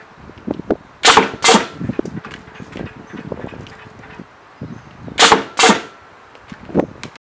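The air-driven cut-off blade of an automatic tape feed-to-length machine cycling twice. Each cycle is a pair of sharp pneumatic clacks with a hiss of air, about half a second apart, as the blade drops and lifts. Lighter clicks and a faint steady hum come in between.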